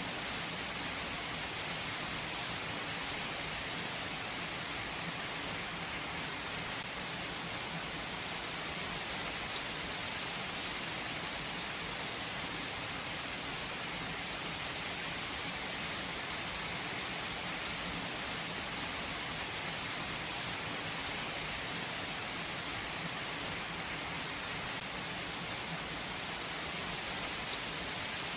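Steady rain falling, an even hiss with faint drop patter on surfaces.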